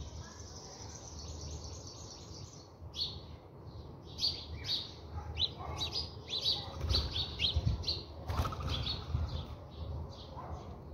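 House sparrows chirping in rapid short calls, getting busier after about three seconds, with a brief flutter of wings about eight seconds in.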